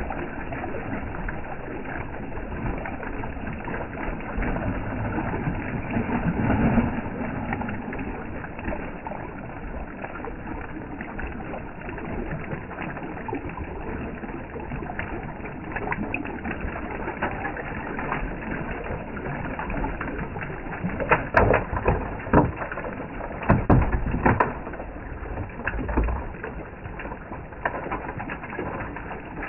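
Steady outdoor noise with a few sharp knocks, like rocks clacking, a little over two-thirds of the way in.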